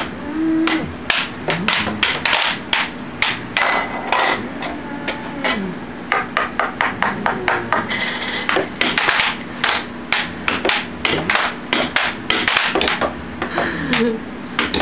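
Air hockey being played: plastic mallets hitting the puck and the puck clacking off the table's rails, in quick irregular strikes that come thickest in the middle. A steady hum from the table's air blower runs underneath.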